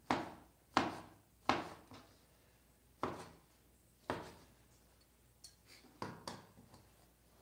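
Cleaver chopping vegetables on a cutting board: about eight sharp knocks at an uneven pace, two of them close together a little after six seconds in.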